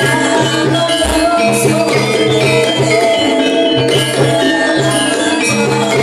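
Live Javanese gamelan music accompanying an ebeg (kuda lumping) dance: tuned metal or bamboo keyed instruments ringing in interlocking notes over a repeating low note.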